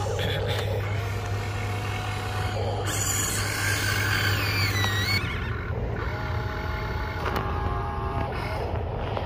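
Electric motors and gears of a radio-controlled excavator whining, rising and falling in pitch as it works its arm and loads sand into an RC dump truck. The sound changes about five seconds in.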